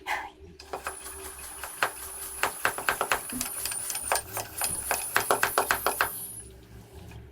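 Attempt to inflate a downhill bike tyre that has no valve: rapid, irregular mechanical clicking, several clicks a second, with a thin high whistle of air that wavers, stopping about a second before the end.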